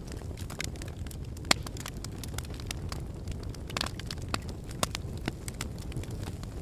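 Wood fire crackling in a fireplace: irregular sharp pops and snaps, a few louder than the rest, over a steady low rumble.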